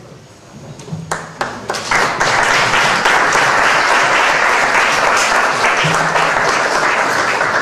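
Audience applauding at the end of a speech: a few scattered claps at first, then, about two seconds in, steady full applause.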